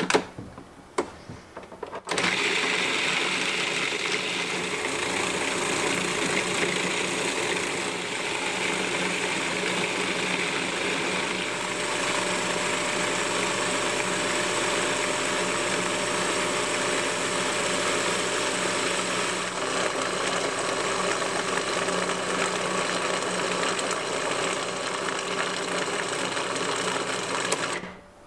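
Food processor lid clicking into place, then the motor starting about two seconds in and running steadily as it blends hazelnut butter and chopped chocolate into a smooth spread, cutting off just before the end.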